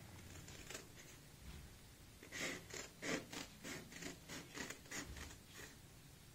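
Scissors cutting through a stiff white pattern sheet: a run of short snips, about three a second, starting about two seconds in, with one faint snip before that.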